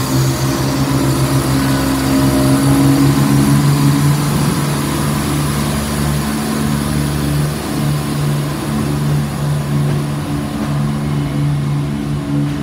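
Train's diesel engine running at the platform: a steady low drone that pulses with an even beat for the first few seconds, then holds level.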